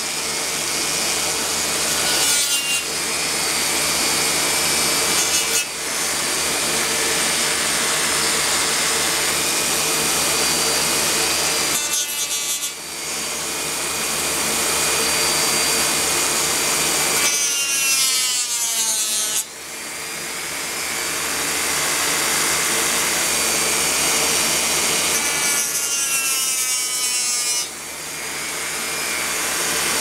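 Handheld rotary tool with a small abrasive cutoff wheel grinding through copper-clad circuit board, a continuous harsh grinding hiss. It drops away briefly every several seconds and picks up again, with a few quick falling pitch sweeps.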